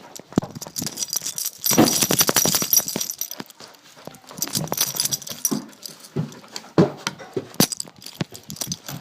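Dog's harness and metal tags rattling and jingling against a phone strapped to the harness as the dog moves, with scattered clicks and knocks. The loudest, densest clatter comes about two to three seconds in.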